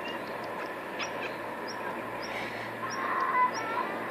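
Domestic cat giving a short, wavering chirping call about two and a half seconds in, loudest near the end, the kind of sound a cat makes while watching a bird. A faint, short high peep repeats about twice a second.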